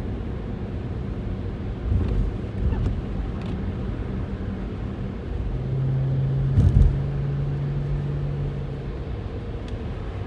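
Car driving on a snowy highway, heard from inside the cabin: a steady low road and tyre rumble. A low hum comes in about halfway through, and there are two dull thumps, the louder one a little past the middle.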